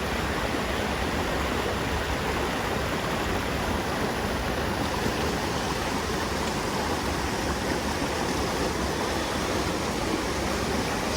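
Mountain creek rushing steadily, an unbroken wash of water.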